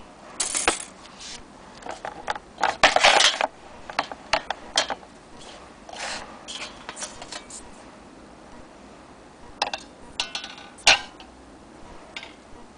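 Large old metal clock hands being handled on hard placemats and a plastic kitchen scale: irregular clinks, scrapes and knocks, loudest about three seconds in and again near the end.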